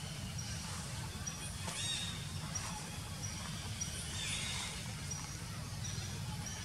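Forest wildlife calls: short high chirps repeating about every half second, with a few louder high calls that fall in pitch, about two and four seconds in, over a steady low rumble.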